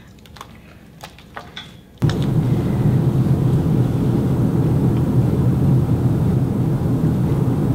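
A few faint clicks, then about two seconds in a steady low rumbling noise starts abruptly and keeps going.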